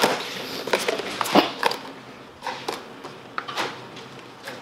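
Plastic takeaway containers being handled: irregular light clicks and knocks as they are pulled from a stack and set down on a bench, loudest about a second and a half in.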